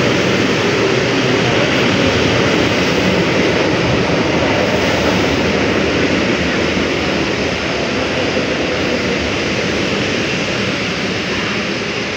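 ED4M electric multiple unit running past close by, a loud, steady rumble of wheels and running gear on the rails that eases a little toward the end as the train slows.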